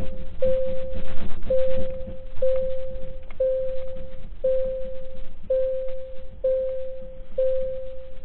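Earthquake early-warning alarm beeping: one steady mid-pitched beep about once a second, sounding after its spoken countdown has reached zero to signal that the shaking has arrived. A low rumble sits under the first two seconds.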